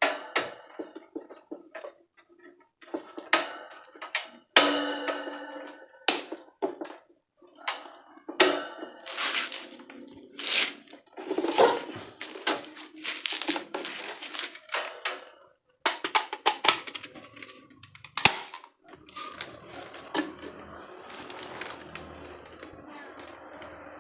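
Hard plastic parts being handled, knocked and clicked together, with packaging rustling, as a desk fan is unpacked and put together. Near the end a steady whirr starts and keeps going.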